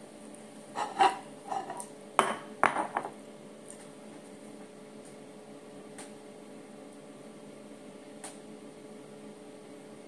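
Ceramic dishes knocking and clinking against each other and the countertop: a quick cluster of sharp clinks between about one and three seconds in as a bowl is set down and a plate picked up, then two faint ticks.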